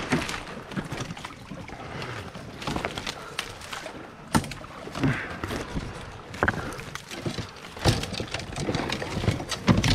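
Water sloshing and splashing around a kayak, with irregular sharp knocks and clatter, the loudest a little over four seconds in and again near eight seconds.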